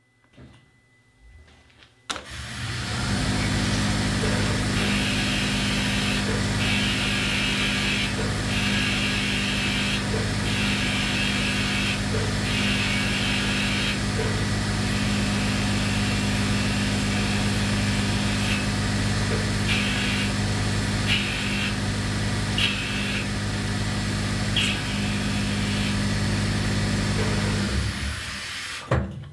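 Omniturn CNC lathe running a machining cycle: after a few light clicks, the spindle and coolant start about two seconds in with a steady hum and a hiss of coolant spray, with a brighter hiss from the cutting that comes and goes. The machine winds down near the end as the cycle finishes.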